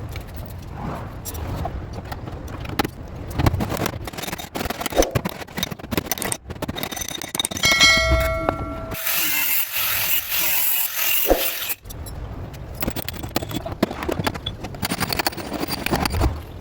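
Bodywork hand tools scraping and rubbing on a car body panel in repeated uneven strokes. About eight seconds in a metal tool rings briefly, followed by a steady hiss for about three seconds before the scraping resumes.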